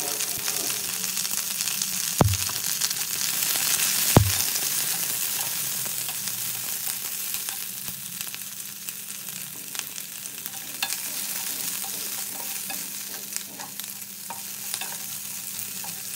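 Chopped onion and capsicum sizzling in hot oil in a non-stick pan while being stirred with a spatula. There are two sharp knocks, about two and four seconds in, and scattered small clicks of stirring later on. The sizzle is loudest around the second knock and then gradually eases.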